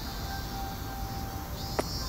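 One sharp clank of a footstep on a steel stair tread near the end, over faint background tones like distant music, a high chirping pulse about twice a second and a low rumble.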